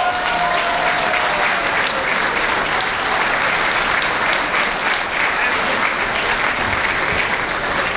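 Audience applauding steadily, with a voice heard briefly at the start.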